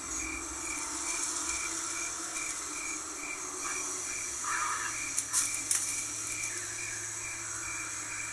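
Nature ambience in which a high chirp, like an insect's, repeats evenly about three times a second over a steady high hiss, with a low hum underneath. A few sharp clicks come a little after the middle.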